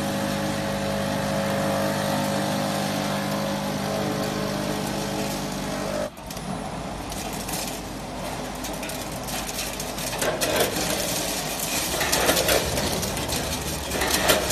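Snack-packing machinery running: first a steady machine hum with several held tones from the feed hopper, then a dry, rattling clatter of crisp snack pieces tumbling through a multihead weigher's hoppers. The clatter grows louder in surges over the last few seconds.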